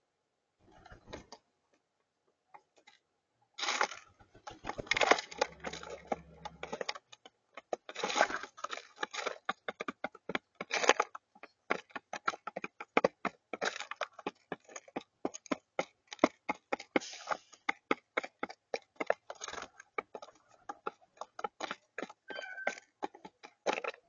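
Rock pigeons pecking at peanuts and seeds on a tabletop close to the microphone: rapid, irregular beak taps and clicks that start a few seconds in and keep on.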